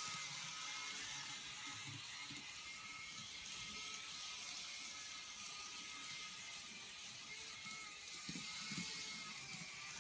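TOMIX N-scale KiHa 40 model diesel railcar running on its track, its small electric motor whirring with a faint steady high whine. Irregular soft low knocks come through, a little stronger near the end.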